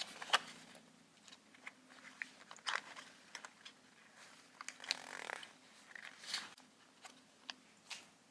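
Origami paper being folded and creased by hand: faint scattered crinkles and taps, with a longer soft rustle about five seconds in.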